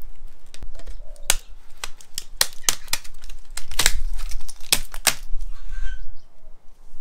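Irregular sharp clicks and clacks of small electronic parts and boards being handled and pried loose while a tablet is taken apart by hand.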